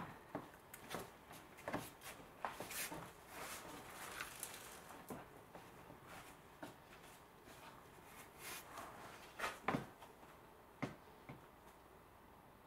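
Plastic engine undertray of a Mercedes W204 being handled from below: scattered light knocks, clicks and rattles of plastic, with a few sharper knocks about three quarters through.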